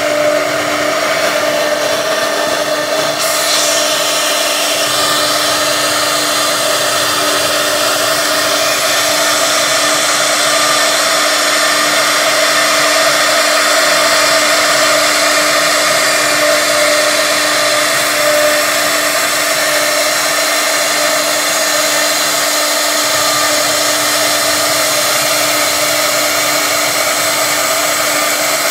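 CNC router's electric spindle running at speed, its small tapered bit cutting a carved relief into a wood panel: a steady whine of several held tones over a hiss of cutting noise.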